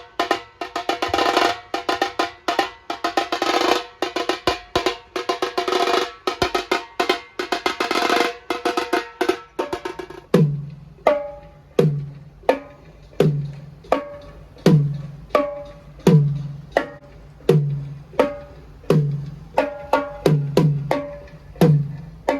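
Percussion being played during a sound check: for about ten seconds a dense, fast roll of drum strokes, then single strikes on a tuned drum with a short low ring, a little more than one a second.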